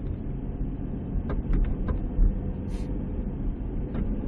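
Steady low road rumble inside a minivan's cabin on a bumpy road, broken by several short knocks from the passenger-side front suspension, the loudest about two seconds in. This is the front-end noise the owner suspects comes from the strut.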